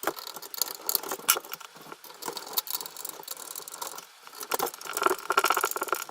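Handling noise from unboxing a new PC power supply: a busy run of clicks, light knocks and rattles with rustling and crinkling of its packaging, a little louder near the end.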